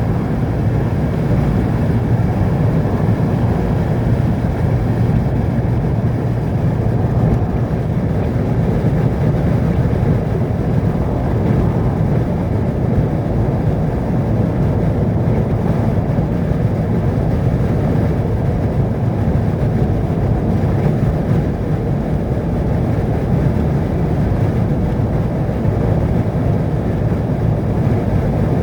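Steady low rumble of a vehicle driving along a road, engine and tyre noise holding an even pace throughout.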